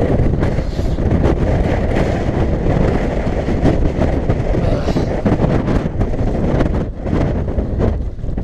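Strong, gusting mountain wind buffeting the microphone: a loud, continuous rumble that surges and eases, with a brief lull about seven seconds in.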